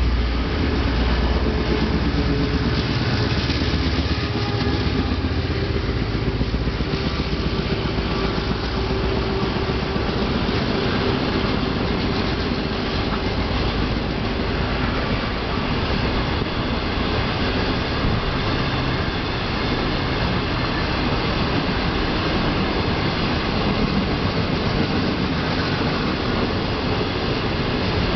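DF4D diesel-electric locomotive passing with its engine rumbling, loudest in the first few seconds, followed by its 25K passenger coaches rolling by with a steady noise of wheels on the rails.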